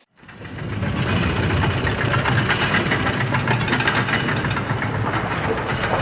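Big Thunder Mountain mine-train roller coaster rumbling and rattling along its track. It rises out of a brief silence within the first second, then runs steady and loud.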